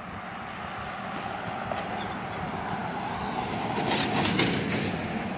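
A road vehicle passing along the street, its tyre and engine noise swelling to a peak about four seconds in and then easing off.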